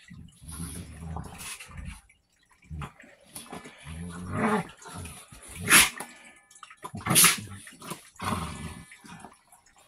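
Two dogs play-fighting, growling at each other, with short sharp outbursts; the two loudest come about a second and a half apart, near six and seven seconds in.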